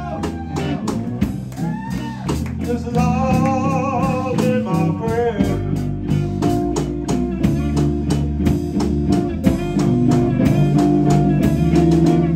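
Live electric blues band playing: electric guitar over electric bass and a drum kit keeping an even beat. A wavering, bending lead line fills the first half, giving way to steadier held notes and chords about halfway through.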